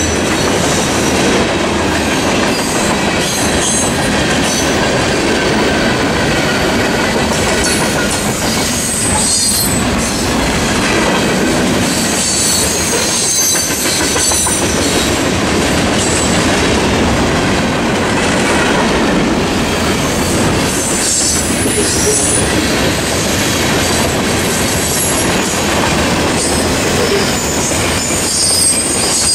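Norfolk Southern mixed freight train's cars rolling past close by: a steady rumble and clatter of steel wheels on the rails. High-pitched wheel squeal comes and goes over it.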